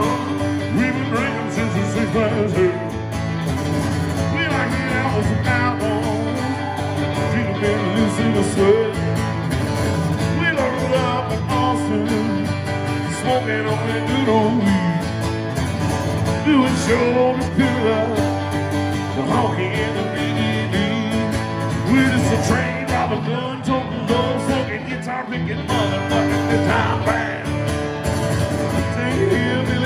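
Two acoustic guitars played together in a country song, strummed and picked.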